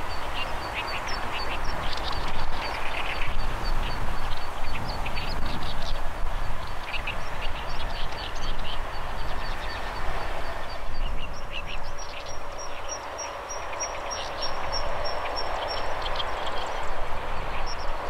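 Zitting cisticola calling: a long run of short, sharp notes, evenly spaced at about two to three a second, that shifts to a higher pitch about twelve seconds in. Other short chirps are mixed in, over a steady rushing background.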